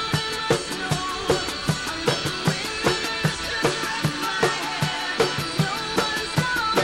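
Rock music driven by a drum kit: an even beat of bass drum and snare hits about two and a half a second, with cymbals and pitched instruments over it.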